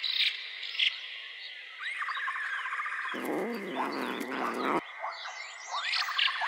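Outdoor chorus of chirping insects and bird calls over a steady high drone. About three seconds in, a deeper wavering call comes in for about a second and a half and stops abruptly.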